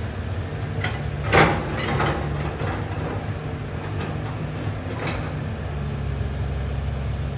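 Caterpillar hydraulic excavator's diesel engine running steadily, with a handful of sharp knocks and clanks, the loudest about a second and a half in and one more about five seconds in.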